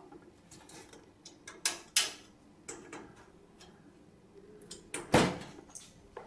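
Screwdriver working the power supply's mounting screws on the back of a steel computer case: scattered sharp metal clicks and knocks as the screws are retightened, the loudest a little after five seconds in.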